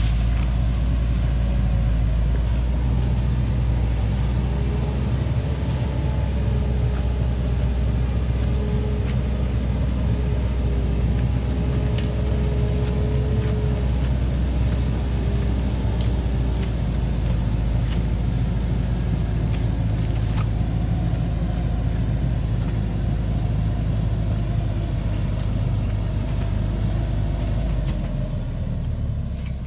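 Diesel engine of a log truck loaded with acacia logs, running steadily under load as it climbs a rough dirt track, a continuous low hum that eases off near the end.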